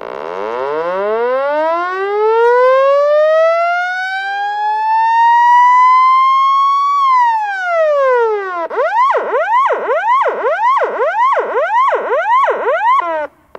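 Police siren in a long wail, rising slowly for about seven seconds and then falling. It then switches to a fast yelp of about two sweeps a second, which cuts off just before the end.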